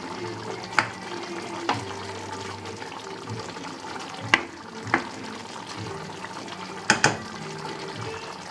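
A utensil stirring chicken curry in a cooking pan over a low sizzle, clacking sharply against the pan about six times.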